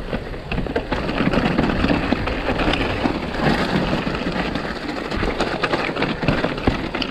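Mountain bike riding down a rocky trail: a continuous crunching rush of tyres over loose stones, with frequent sharp knocks and rattles from the bike.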